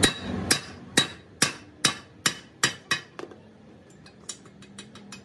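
Spring-handled welder's chipping hammer striking a fresh weld bead on a steel axle housing tube, chipping off the slag: about eight sharp metallic strikes, roughly two a second, then softer, lighter taps after about three seconds.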